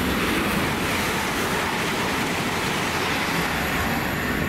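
A train passing on the line, giving a steady, loud rush of wheel and rail noise.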